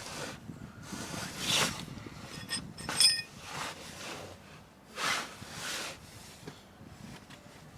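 Handling noises: several short rustling swishes and one metallic clink about three seconds in.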